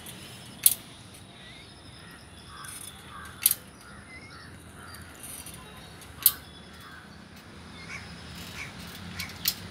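Pedal-powered water pump giving a sharp clank about every three seconds as it is pedalled, four times in all. Crows caw in short calls, mostly around the middle.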